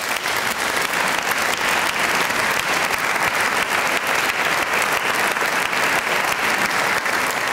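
Concert audience applauding after a choir song, a steady dense clapping.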